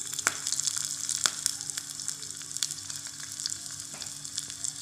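Chopped onions sizzling and crackling in hot oil in a small metal pot, just added to the oil. There is a steady hiss full of fine pops, with a few sharper clicks near the start.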